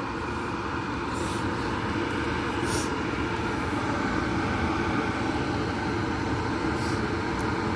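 Electric kettle heating water: a steady rushing noise as the water works toward the boil, with a few faint clicks.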